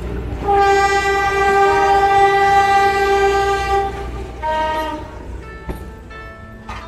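Philippine National Railways commuter train passing close by, with a low rumble from the cars and the horn sounding: one long blast of about three seconds, then a short second blast.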